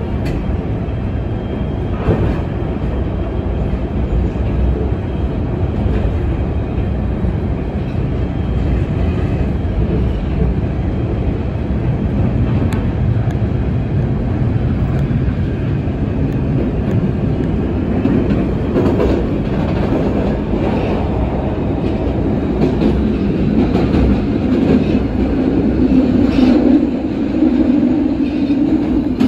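PATH subway train (PA-5 car) running at speed through a tunnel, heard from inside the car as a steady rumble with occasional wheel clicks. A low hum swells louder in the last few seconds.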